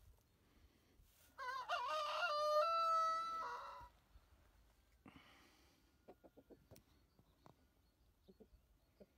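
A rooster crows once, starting about a second and a half in and lasting about two and a half seconds. A few faint clicks follow later.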